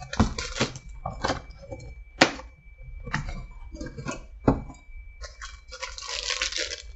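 Handling of a cardboard snack-cake box and plastic-wrapped mini snack cakes: irregular crinkling and rustling, with one sharp crack about two seconds in.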